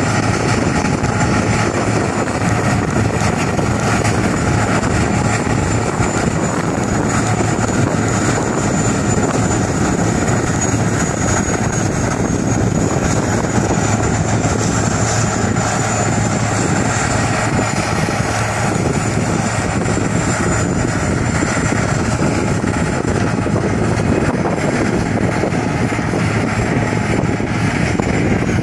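Caterpillar Challenger rubber-tracked tractor's diesel engine running steadily under load while pulling a Cat 611T pull scraper that is filling with dirt, with a steady high whine over the engine noise.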